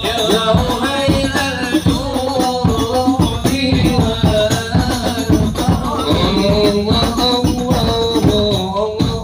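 Islamic devotional music (sholawat): voices singing together over steady hand-struck percussion with a jingling rattle.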